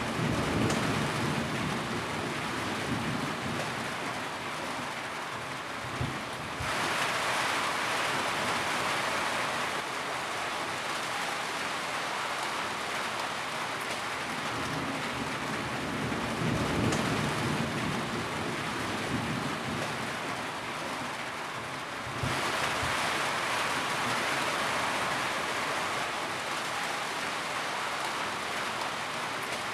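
Steady rain falling on surfaces. It turns abruptly heavier about a fifth of the way in and again about three-quarters of the way in.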